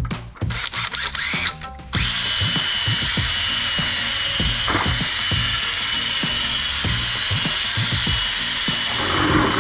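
Electric drill spinning an 800-grit sanding disc against a headlight lens for wet sanding, starting up about two seconds in and then running steadily, after a few handling knocks.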